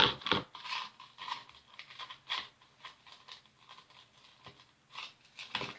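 Sticky glitter glue slime being kneaded and pulled by hand, making irregular wet crackles and pops, loudest at the start and again near the end. The slime is still too sticky, short of activator.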